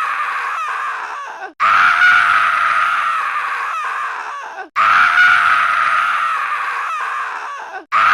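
A looped stock sound effect: a sustained, scream-like cry with a slightly falling pitch, about three seconds long. It cuts off abruptly and starts again three times.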